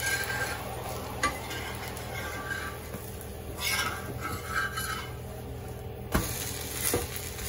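Metal spatula scraping under a green gram dosa on a hot dosa tawa, working it loose in several short strokes over a faint sizzle, then two sharp knocks against the pan near the end as the dosa is flipped.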